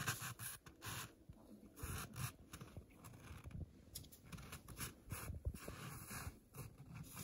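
Rubber boots shuffling and crunching in snow and dry brush, with scattered scraping and rustling at uneven intervals.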